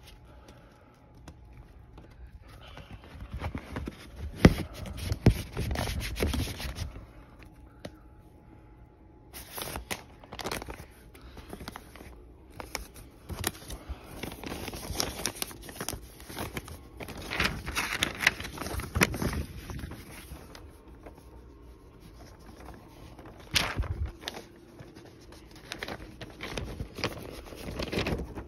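Handling noise from a vinyl LP being unpacked: the cardboard jacket, paper inner sleeve and pink vinyl disc rustling and scraping in irregular bouts, with scattered sharp clicks and knocks.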